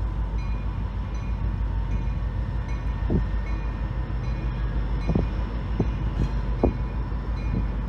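Diesel-electric locomotive running as it pulls a passenger train past at low speed, a steady low rumble. A handful of short low thumps come from about three seconds in.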